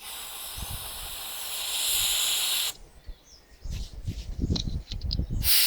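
Butane lighter-refill can spraying into the keyhole of a bicycle D-lock: a steady hiss for nearly three seconds, growing louder partway through. Then a few handling knocks and clicks, and a second short burst of spray near the end.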